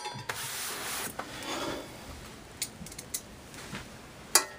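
Phillips screwdriver driving a screw into an ice shaver's metal housing, a rasping scrape as it turns, followed by a few light metal clicks and a sharper click near the end.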